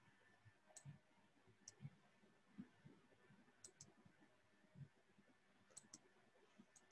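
Faint clicks of a computer mouse over near silence: a few single clicks and two quick double clicks.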